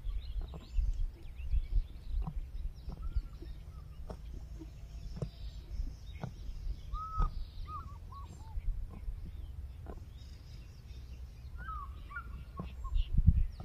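Plains zebra grazing close by: irregular crisp tearing and munching of grass as it crops and chews. Short chirping bird calls come in around the middle and again near the end, over a steady low rumble.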